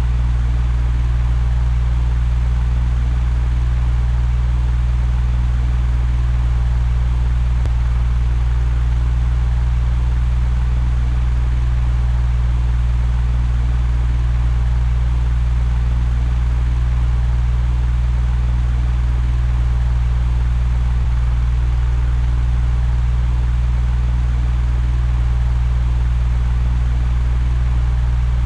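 Electric fan running steadily: a deep hum under an even rush of air noise.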